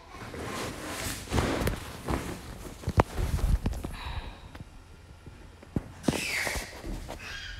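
Fabric rustling and handling noises as a cap is stitched by hand with needle and thread, with a few sharp knocks, the loudest about three seconds in.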